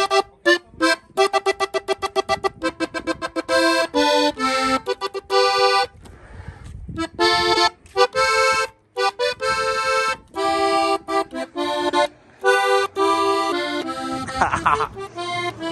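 Diatonic button accordion played solo: a fast run of short staccato notes, then longer held notes and chords, with short pauses between phrases.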